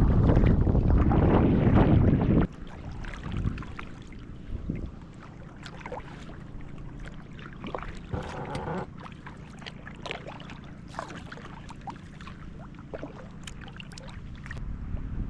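Wind buffeting the microphone for about two and a half seconds, then stopping abruptly. After it come quieter water sounds from kayak paddling: scattered small splashes, drips and clicks.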